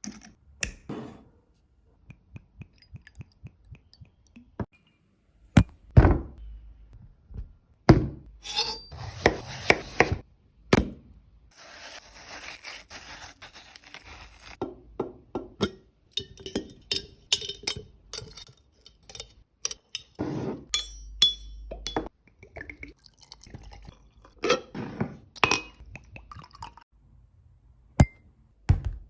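Glass and kitchenware clinking and knocking as they are handled, in scattered irregular strokes, with a steady hiss for about five seconds from around nine seconds in.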